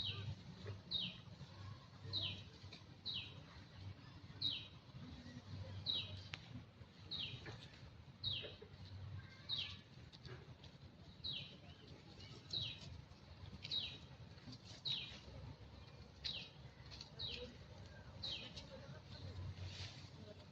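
A bird repeating a short, high call that falls in pitch, about once a second, over a low steady rumble.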